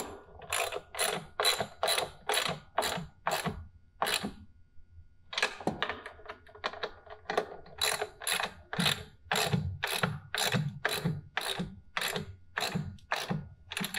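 Hand ratchet with a 9/16-inch socket tightening a nut onto a 3/8-inch machine bolt: a short run of ratchet clicks on each back-swing, repeating about twice a second. There is a pause of about a second some four seconds in.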